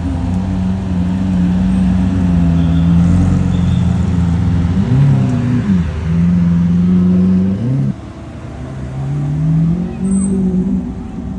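Engine of a rally supercar running at a steady pitch. About halfway through it is blipped quickly up and down; near the end the note drops suddenly, then rises again as the car accelerates.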